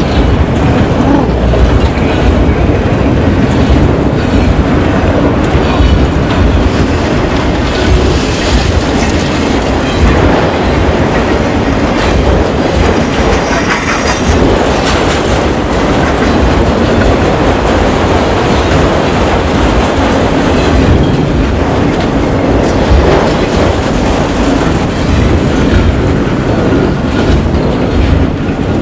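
Freight train of enclosed autorack cars rolling past close by: the wheels and cars make a loud, steady rumble and clatter on the rails.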